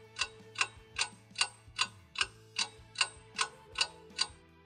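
Clock ticking steadily, about two and a half ticks a second, over low held background tones; a ticking clock used to mark waiting. The ticking stops near the end.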